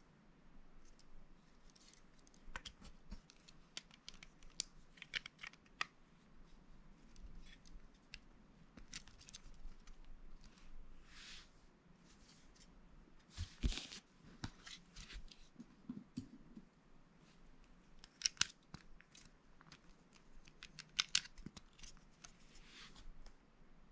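Small plastic Lego pieces being handled and pressed together: scattered sharp clicks and short rustles, with a few louder clicks about halfway through and again near the end.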